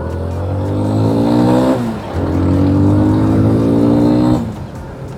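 Motorcycle engine accelerating: the revs climb, drop at a gear change about two seconds in, climb again, then fall away as the throttle closes near the end.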